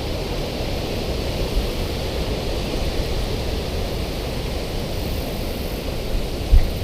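Wind buffeting the microphone outdoors: a steady rushing noise with an uneven low rumble, and a brief low thump near the end.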